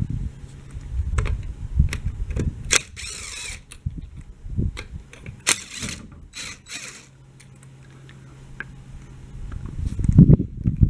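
Cordless power ratchet spinning lug nuts off a car wheel. Its motor hums steadily in two runs of about three seconds each. In between come sharp clicks and short metallic rattles as the tool and nuts are handled.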